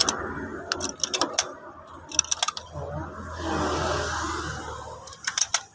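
Hand ratchet wrench clicking in short runs as a socket turns a bolt on a car engine's valve cover. A broad rushing noise swells and fades in the middle.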